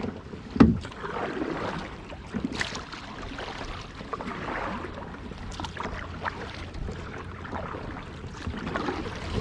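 Kayak being paddled through lily pads: irregular paddle strokes and swishes in the water, with a sharp knock about half a second in.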